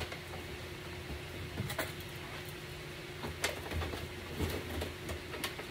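Thin aluminum sheet, cut from cake pans, being bent and pushed into a cone shape: a few short, faint crinkles and clicks, over a low steady rumble.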